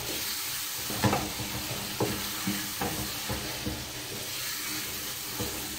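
Chopped onions and tomato paste sizzling as they fry in a metal pot, stirred with a wooden spoon that knocks and scrapes against the pot every second or so.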